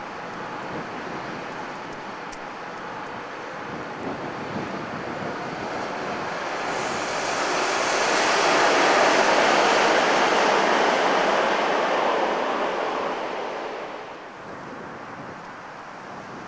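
Swiss electric locomotives of a train passing close by at speed: a rush of steel wheels on rail that swells to its loudest about halfway through and then fades away shortly before the end. There is a steady windy hiss underneath.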